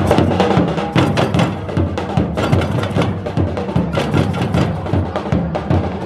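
A group of drums played together in a fast, steady rhythm of sharp strikes.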